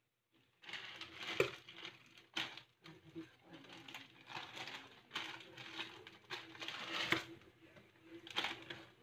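Plastic instant-noodle packets crinkling and rustling in irregular bursts as they are torn open and handled, with a sharp click about a second and a half in.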